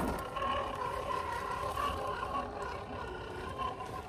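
Element RC Enduro crawler's Hobbywing Fusion 1800kv brushless motor and gearbox whining steadily at low crawling speed, the pitch wavering slightly with the throttle.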